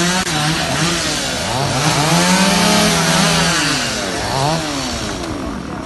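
Chainsaw running, its engine pitch rising and falling as it is revved up and down.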